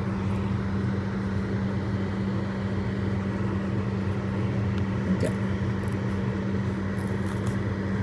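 Steady low electrical hum of a running appliance, with a few faint soft clicks in the second half as the silicone mould is handled.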